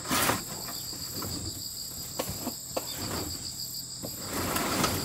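Steady high insect trilling from outside. A few short knocks and rustles come from someone moving about at a seat inside the camper van.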